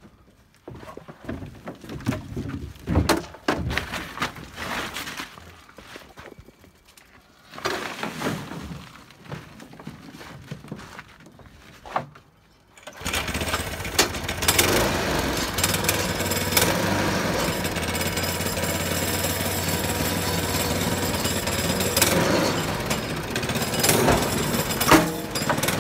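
Irregular knocking and rattling for the first half. About halfway in, the motorized wheelbarrow's small engine starts up and then runs steadily.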